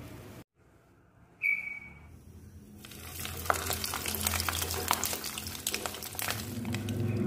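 A whole fish frying in hot oil in a pan, sizzling with many crackling pops, starting about three seconds in and growing louder. About a second and a half in there is a brief high beep.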